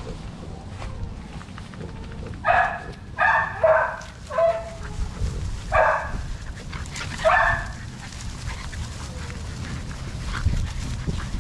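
American Bully puppies barking and yipping while they play-fight, about six short high barks between two and eight seconds in.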